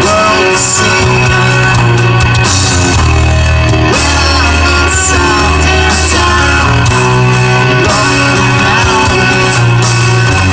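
Loud rock song with singing and a steady beat.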